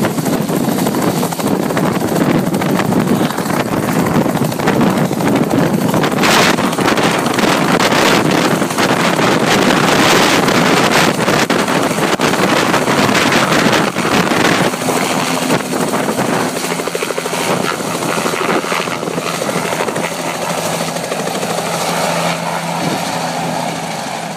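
Bell 206 JetRanger helicopter lifting off at full rotor speed and flying away: a loud, even chop of the rotor blades with turbine whine. The sound fades steadily over the second half as the helicopter climbs away.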